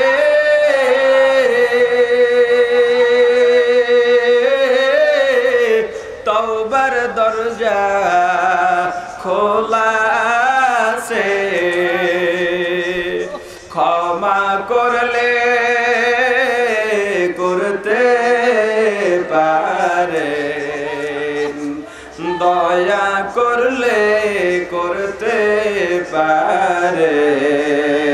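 A man's solo voice chanting a religious recitation in long, ornamented held notes that waver and slide in pitch, broken by short pauses for breath.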